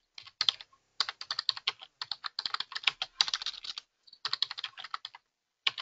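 Fast typing on a computer keyboard: quick runs of keystrokes broken by a few brief pauses.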